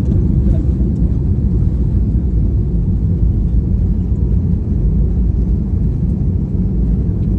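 Steady low rumble of an airliner during its landing.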